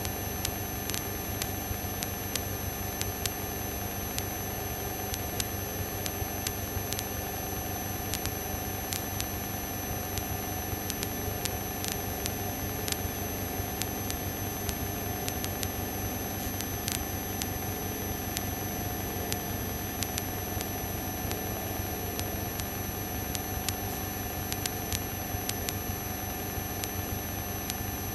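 Light training aircraft's piston engine running steadily in flight, heard inside the cockpit as a constant drone with a thin high whine over it and scattered faint clicks.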